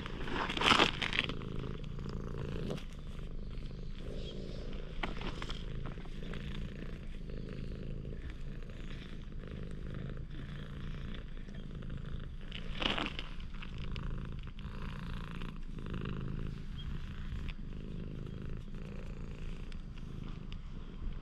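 Orange-and-white cat purring steadily close to the microphone while it is stroked on the head: the sign of a contented, relaxed cat. Brief rustles come just after the start and again about two-thirds through.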